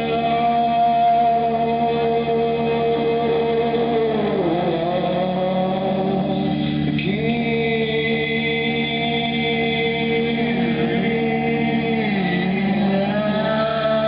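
Music: long held sung notes over a steady drone, with a few slow dips in pitch.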